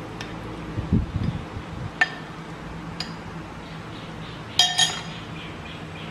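A metal spoon clinking twice against a ceramic bowl, with a few lighter clicks of utensils before it and a dull thump about a second in, over a steady low hum.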